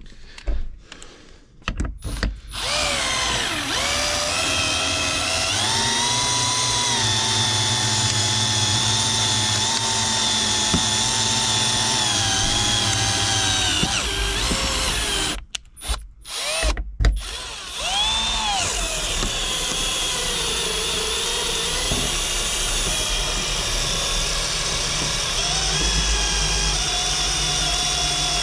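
Cordless drill spinning a wire-winder windshield cut-out tool, reeling in the cutting wire to slice through the old windshield's urethane. The motor runs in long steady stretches with its whine dipping and rising in pitch, stops briefly about halfway with a couple of short jolts, then runs steadily again.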